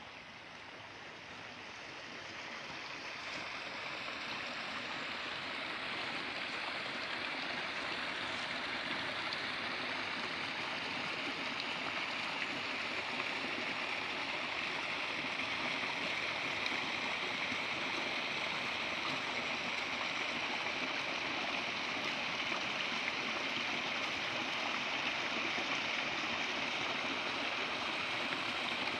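A small brook fed by groundwater welling up to the surface after heavy winter rain, with water spilling down a little step over mossy rock. It makes a steady splashing rush that grows louder over the first few seconds, then holds even.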